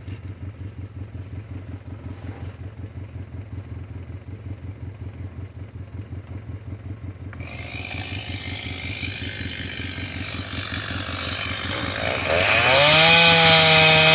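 A small engine idles with a steady low pulse. A rasping hiss builds from about halfway, and near the end a two-stroke chainsaw revs up sharply to full throttle and holds there, cutting into a fallen tree.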